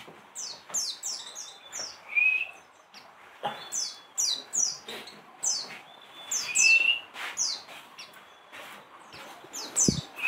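Caged white-eyes chirping: many short, high chirps that fall in pitch, coming in quick runs, with a short rising whistle now and then. A single dull knock near the end.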